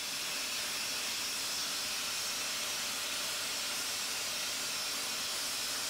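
Abrasive grit-blasting nozzle hissing steadily, one unbroken high hiss that stays level throughout.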